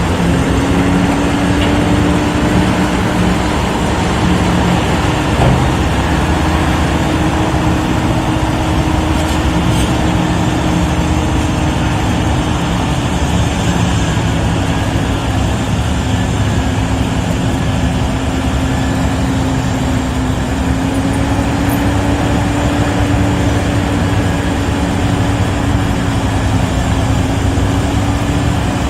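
A vehicle engine running steadily, with one held pitch that drifts slightly up and down over a continuous low rumble.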